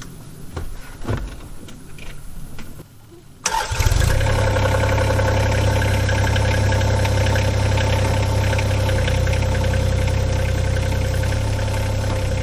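John Deere 26G mini excavator's diesel engine on a cold start. First come a few clunks and knocks as the operator climbs into the seat. About three and a half seconds in, the engine fires suddenly and settles into a steady idle.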